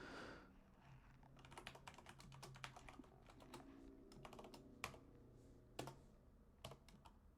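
Typing on a computer keyboard: faint, irregular keystrokes in quick runs, with a few louder key presses.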